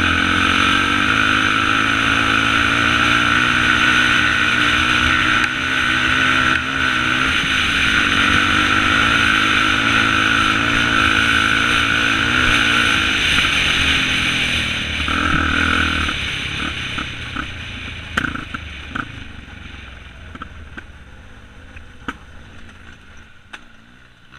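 Yamaha ATV engine running steadily under throttle, heard from the rider's helmet. About two-thirds of the way through the engine note drops and fades as the quad slows, with scattered snaps and clicks as it rolls onto a leaf-covered woodland trail.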